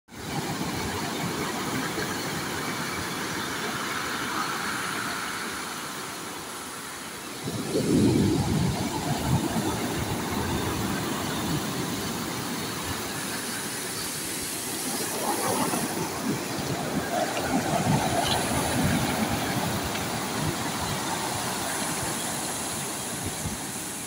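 Sea waves breaking on a pebble beach: a steady rush of surf, with a louder crash about eight seconds in and another swell of sound later on.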